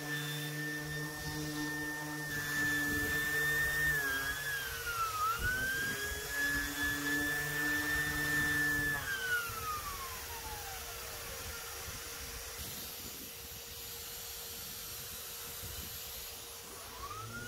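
Electric random orbital sander sanding down a boat's underwater hull: a steady whine that dips in pitch as it is pressed onto the hull about four to five seconds in. About nine seconds in it winds down over a couple of seconds and starts up again near the end. A steady lower hum from the connected dust extractor runs on the whole time.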